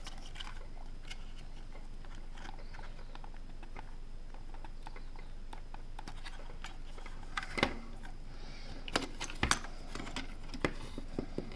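Scattered small clicks and taps of a circuit board and plastic charger case being handled and worked loose, most of them in the second half.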